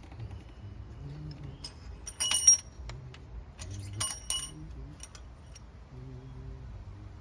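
Small metal engine parts clinking together with a ringing tone, in two short clusters about two and four seconds in, with a few lighter ticks between.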